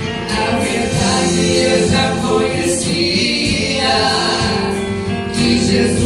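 A man and a woman singing a gospel song together into microphones, amplified through the hall's PA, with long held notes over musical accompaniment.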